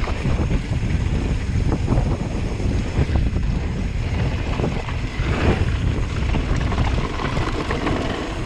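Wind buffeting an action camera's microphone while a mountain bike rolls down a gravel trail: a steady rumble from the tyres, with many small clicks and rattles from stones and the bike.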